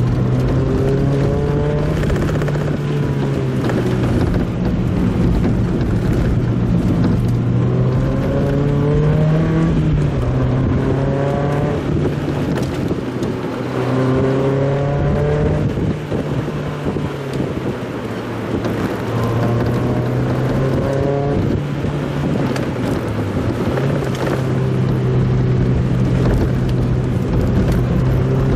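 Mazda Roadster's engine running on the move, heard from on board over road noise. Its pitch climbs again and again, a rising note every five or six seconds over a steady low hum, sped up by faster playback.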